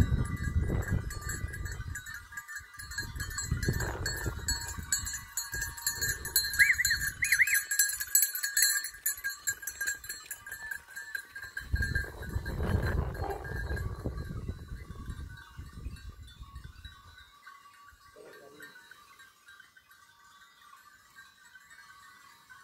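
Bells on a herd of goats clanking and ringing continuously, with several bursts of low rumble; the bells grow fainter over the second half.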